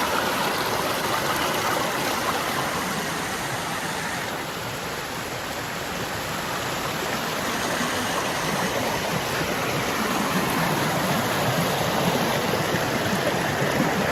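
Steady running water of a stream, an even rushing and gurgling.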